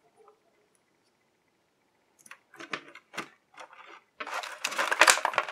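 Thin clear plastic blister tray being handled: after a near-silent start, a few scattered clicks, then from about four seconds in a dense run of crinkling and crackling plastic as a piece is worked loose from the tray.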